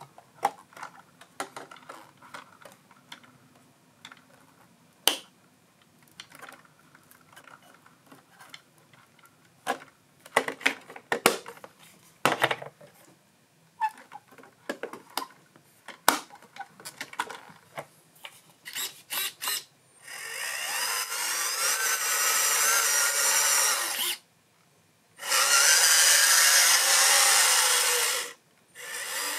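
Scattered handling clicks and knocks, then a small electric motor whirring in two bursts of about four and three seconds, its pitch rising and wavering.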